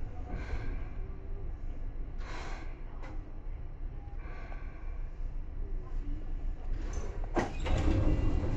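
Inside a Seibu 2000 series electric commuter train car at a standstill: a low steady hum with a few short hissy noises, then a sharp clunk about seven seconds in, followed by a louder low rumble.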